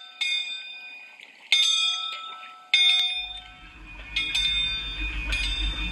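Bell-like chimes struck five times, about every second and a half, each ringing out and fading. A low rumble begins about three seconds in under the chimes.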